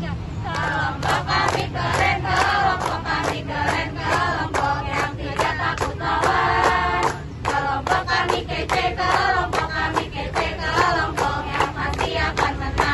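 A group of young people, mostly women, chanting and singing their group cheer in unison in Indonesian ("kelompok kami keren, kelompok kami kece"). They clap along in a steady rhythm of about two claps a second.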